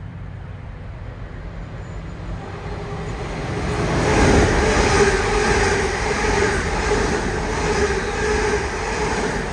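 London Northwestern Railway Class 350 Desiro electric multiple unit running along the platform. Its wheels rumble on the rails with a steady whine over them, building up about two and a half seconds in and staying loud as the carriages go by.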